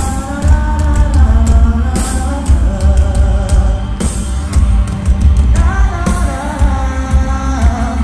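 Pop-rock band playing live through a concert PA: a lead vocal sung over electric guitar, bass and drums, with heavy bass, recorded from within the audience.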